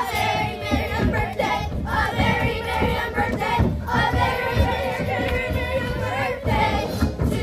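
Children's chorus singing with musical accompaniment, holding long sustained notes.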